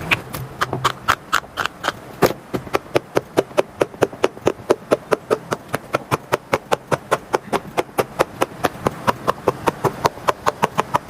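Silicone pop-it fidget toys being popped quickly bubble after bubble, a steady run of short pops at about four or five a second.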